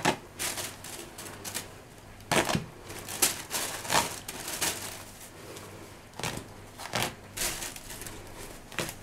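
Feathers being plucked by hand from a wood pigeon's breast: a run of short, irregular ripping sounds as tufts tear out of the thick skin.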